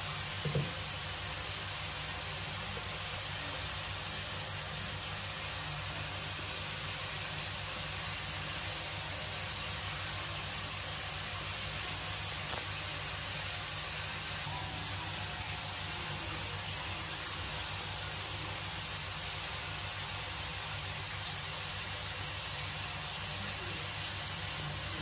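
Steady hiss with a low hum underneath, and a brief soft bump about half a second in.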